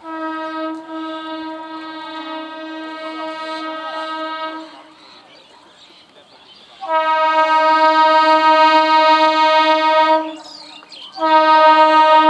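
Horn of an approaching conventional EMU local train sounding three blasts of a single steady note. The first lasts about four and a half seconds. After a short pause comes a louder one of about three seconds, and a brief third blast near the end.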